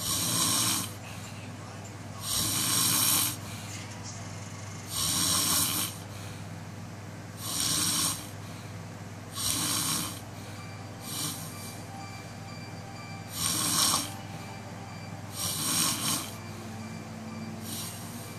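A person snoring in a steady rhythm: a raspy snore about every two to two and a half seconds, some weaker than others.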